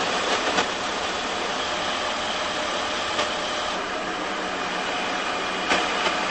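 A vehicle engine idling steadily under a wash of steady outdoor noise, with a few faint clicks.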